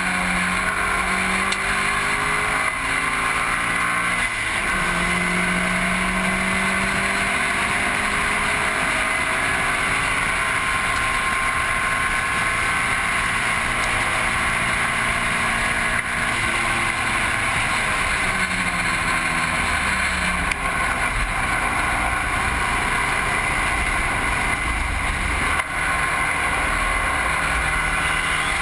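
Car at full pace on a race track: the engine note climbs and drops again several times with acceleration, gear changes and lifting for corners, under a loud steady rush of wind and tyre roar.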